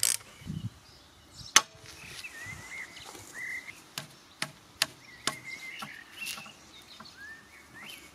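A steel flat bar clacking against a double articulated welding magnet. It snaps onto the magnet with one sharp metallic click about a second and a half in, then gives a few lighter taps as it is shifted on the magnet's faces.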